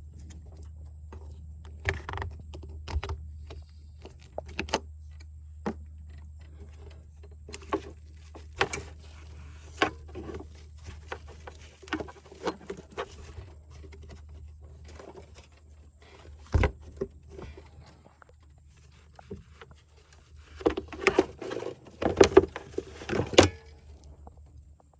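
Scattered clicks, knocks and light metallic clinks of hand tools and parts being handled while getting at the ignition coils and spark plugs, with a busier run of louder knocks near the end. A steady low hum underlies most of it and stops just before the end.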